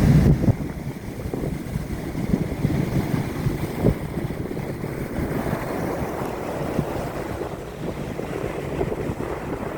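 Surf of a slightly rough sea: waves breaking and foaming in a steady wash, with wind buffeting the microphone in low, uneven rumbles.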